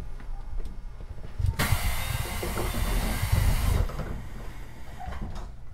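Compressed air venting from a JR Central 373 series electric train's pneumatic system: a sharp hiss starting about a second and a half in and cutting off about two seconds later, over a low rumble and a few knocks from the car.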